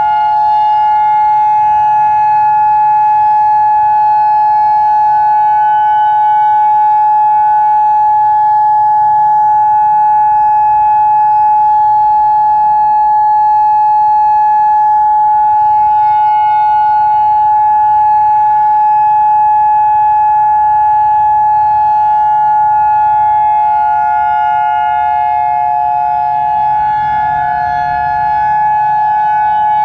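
Federal Signal Modulator 4016 rotating outdoor warning siren sounding a steady alert tone, with the more distant Federal Signal 2001 sirens blending in at slightly different pitches. The pitch holds level without rising or falling, and the loudness sags a little near the end before coming back up.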